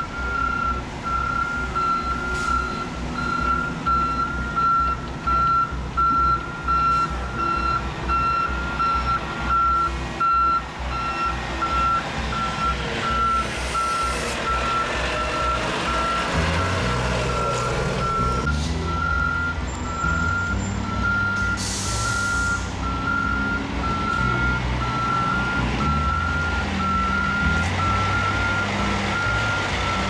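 Heavy-truck backup alarm beeping steadily, about two beeps a second, over idling and moving diesel truck engines. From about halfway through, a truck engine close by grows louder, and a short hiss of air brakes follows a few seconds later.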